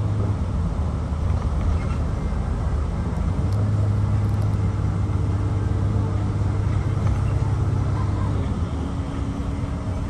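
Shuttle bus driving, heard from inside the cabin: a steady low engine drone over road noise.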